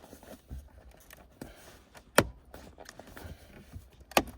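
Two sharp plastic clicks about two seconds apart, with lighter clicks and rustling between them: a car's shift boot and its trim frame being pushed back down and snapped into the centre console around the gear lever.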